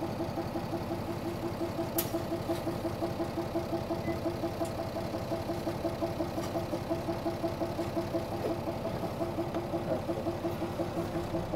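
Diesel engine of a 1999 Nissan Diesel Space Runner (KC-RM211GAN) midibus idling steadily with an even, rapid pulse while the bus stands at a stop.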